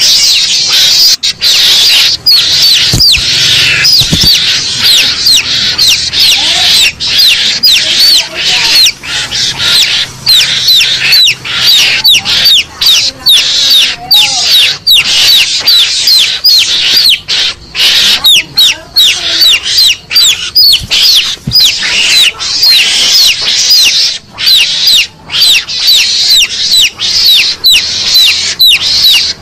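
Garangan (mongoose) hunting lure call played back loud: shrill, rapid chirps and squeaks packed closely, many a second, without a break.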